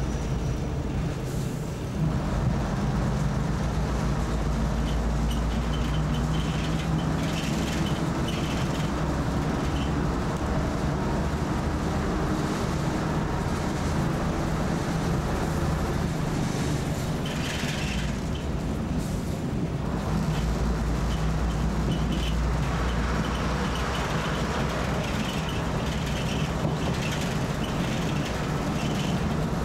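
Passenger train carriage heard from inside: a steady low drone with running rumble and light rattles.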